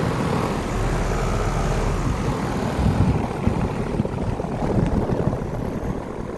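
Carrier central air conditioner's outdoor condensing unit running steadily: the condenser fan, driven by a Broad Ocean motor, blowing over the hum of an Emerson Copeland scroll compressor.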